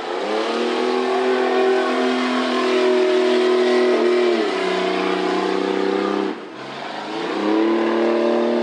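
A tough-truck engine run hard at high revs, holding a steady pitch, stepping down a notch about four seconds in, letting off briefly around six seconds, then revving back up near the end.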